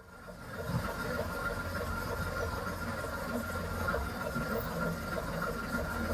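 Preserved diesel train pulling away, heard from inside the carriage: the engine and running gear start up about half a second in and carry on as a steady hum and rumble with a thin steady whine above them.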